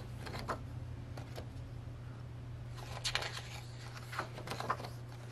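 Pages of a photo book being turned and handled: a few short paper rustles and slides, over a steady low electrical hum.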